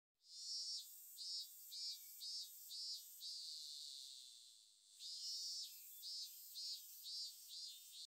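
Robust cicada singing: a series of pulsed calls about two a second, swelling into one long held drone a few seconds in, then breaking back into pulses.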